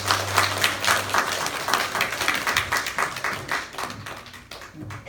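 Congregation applauding, dense clapping that thins out and fades over the last couple of seconds. A held low note from the band stops about a second in.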